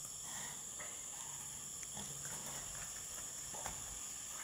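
Male alpacas wrestling on dirt: low grunting with a few sharp scuffs and knocks of their feet, over a steady high drone of insects.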